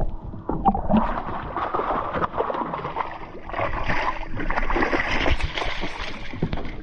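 Muffled gurgling water, then water splashing as a hooked fish thrashes at the surface and is scooped into a landing net, busiest from about three and a half seconds in.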